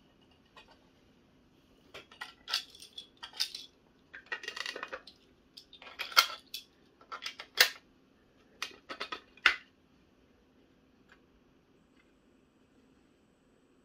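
3D-printed plastic toy aircraft carrier being handled: its print-in-place hinged hull parts and the small jets clicking and clacking against each other as it is opened and closed, with a short rattling scrape about four and a half seconds in and three sharp snaps near the middle.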